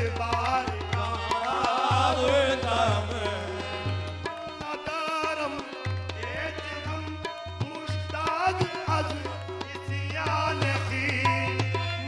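Qawwali music: tabla drumming under voices singing a wavering melody.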